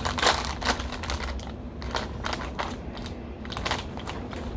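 Crinkly plastic snack bag being torn open and handled, a quick run of crackles that is densest in the first second, then sparser rustling as the bag is held open.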